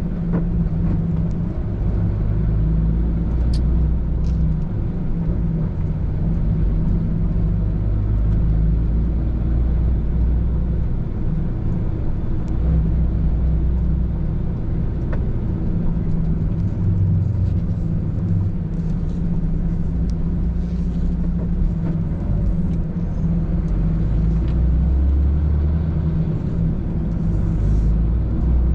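Heavy tow truck's diesel engine running as it drives, a continuous low hum whose pitch shifts a few times.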